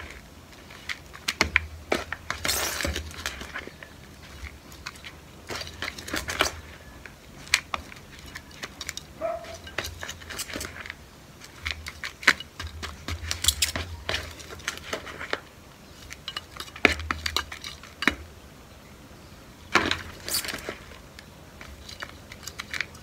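Potting mix being scooped out of a black plastic pot and tipped into a plastic flowerpot: scraping and clatter of the scoop against the pots' plastic rims and the rustle of the soil, in short spells a few seconds apart.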